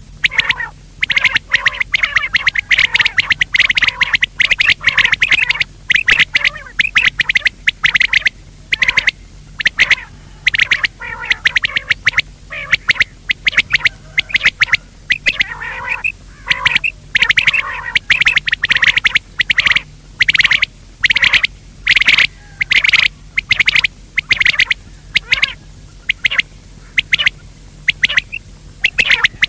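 Quail (batair) calling over and over: quick runs of short, sharp, high notes, repeated many times a second with brief pauses between runs.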